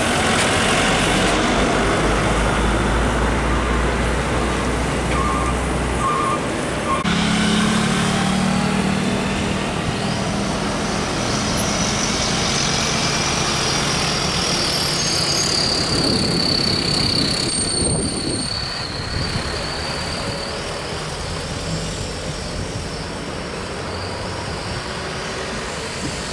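Heavy trucks driving past: diesel engines running over loud tyre and road noise. A thin high whine falls slowly in pitch around the middle.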